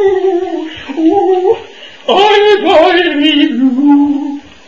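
A person's voice singing loudly in long, wavering held notes, with a short break a little before halfway and then a more agitated, bending stretch.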